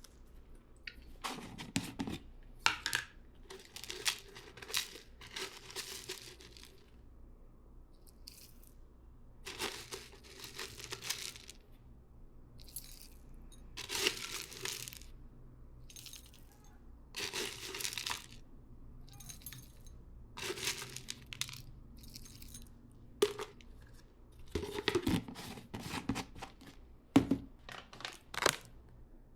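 Intermittent rustling handling noise: about a dozen short, irregular bursts, each lasting around a second, from things being moved and handled by hand.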